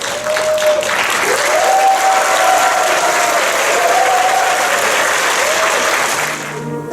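Audience applauding, with a few voices calling out over the clapping. The applause dies away near the end.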